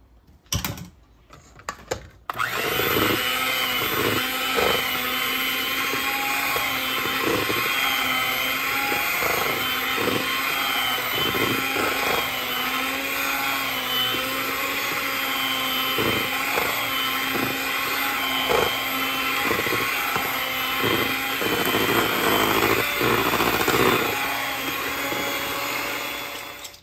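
A Proctor-Silex electric hand mixer runs steadily, its beaters whirring through thick cream cheese batter in a stainless steel bowl and knocking against the bowl now and then. It switches on about two seconds in, after a few clicks, and stops just before the end.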